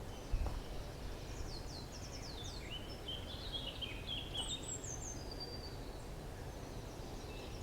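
Woodland birdsong: several small birds singing phrases of quick, high, falling notes and short trills that come and go throughout, over a low steady background hum.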